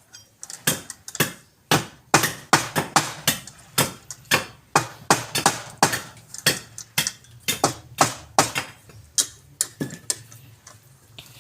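Repeated hammer blows in an irregular run of about three strikes a second. Some strikes ring faintly, and they stop about ten seconds in.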